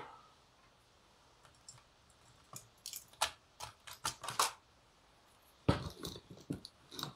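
Scattered clicks and knocks of tools and small parts being handled on a workbench, with a louder knock near the end.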